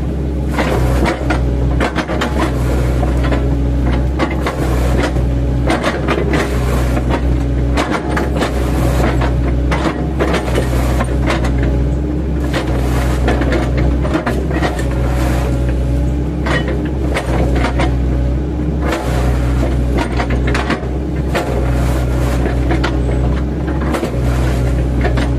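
Diesel engine and hydraulics of an 8-ton mini excavator working under load, a steady drone with a whine, while the chipping blades on its bucket chop into oil palm trunks with repeated irregular knocks and cracks.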